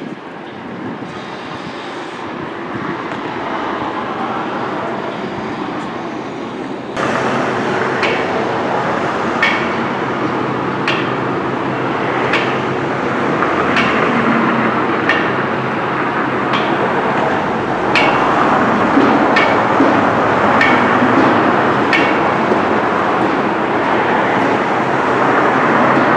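Construction-site noise: a steady rumble of machinery with regular metallic hammer strikes, about one every second and a half, starting about seven seconds in after an abrupt jump in level.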